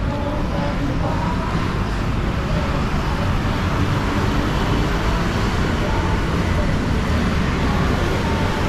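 Steady city street noise: road traffic running by with a constant low rumble, and faint voices in the background.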